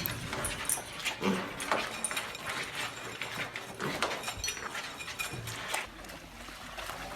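A dog amid a run of irregular clicks and scuffling noises.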